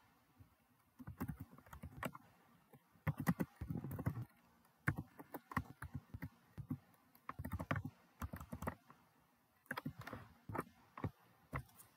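Computer keyboard typing, in several quick bursts of keystrokes with short pauses between them.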